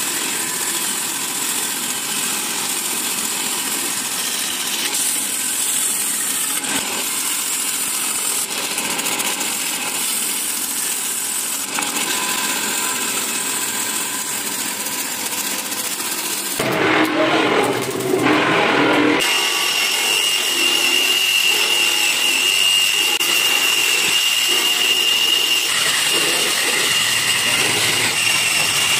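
Band saw running and cutting through a thick wooden plank along a marked gun-stock outline. About two-thirds of the way through the sound changes to a different power tool working the wood, with a steady high whine.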